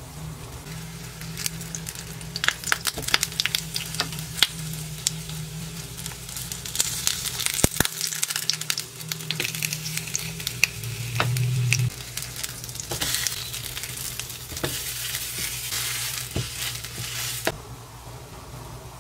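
Tuna patties sizzling and crackling as they pan-fry in a two-hole nonstick pan, with occasional scrapes and taps of a silicone spatula. The sizzle drops away near the end.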